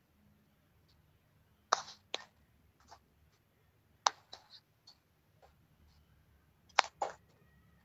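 A few sharp clicks and taps at uneven intervals: two about two seconds in, one about four seconds in and two close together near the end, with fainter ticks between, over a faint low hum.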